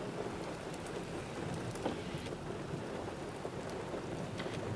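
Steady rain during a tornadic thunderstorm, an even hiss with scattered sharp taps of drops.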